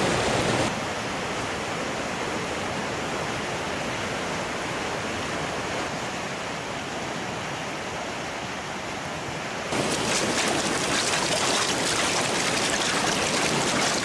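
Water rushing over waterfall rapids, a steady rushing noise. About ten seconds in it suddenly gets louder and brighter.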